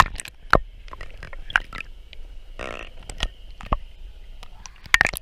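Irregular knocks and clicks, a few sharp ones among softer taps. There is a short raspy sound just past the middle.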